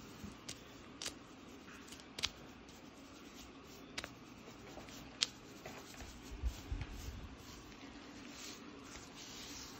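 A comb scratching and scraping through thick hair along the scalp, lifting dandruff flakes, with a few sharp clicks scattered through.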